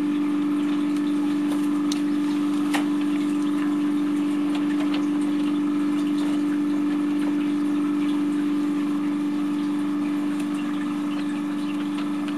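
Egg incubator's fan running with a steady hum, with a few faint clicks over it.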